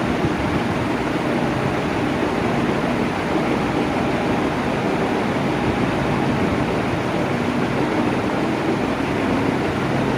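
Electric fan running steadily: a constant rush of air with a faint low hum.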